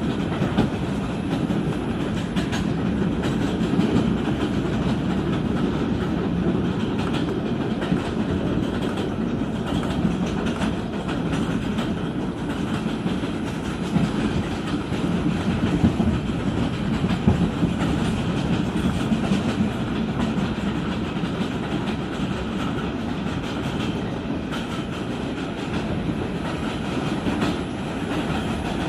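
Inside an R142 subway car running at speed: a steady rumble of wheels on track with scattered clicks from rail joints, and no ventilation fan noise because the car's HVAC is off.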